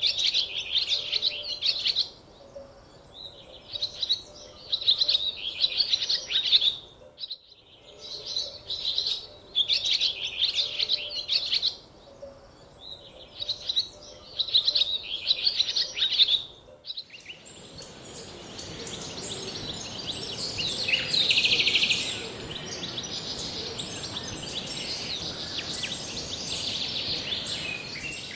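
A songbird singing in repeated high, warbling phrases of about two seconds each, with short pauses between them. About two-thirds of the way through the sound cuts to a steady high-pitched hiss over general outdoor noise.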